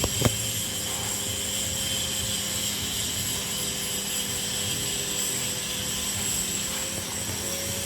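Steady running noise of a machine, holding a few constant tones, with one sharp knock about a quarter second in.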